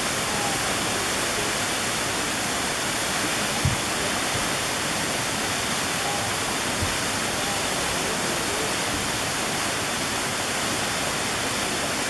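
Gugok Falls, partly frozen, with water still pouring down through a curtain of ice: a steady, even rushing hiss. One brief low thump about four seconds in.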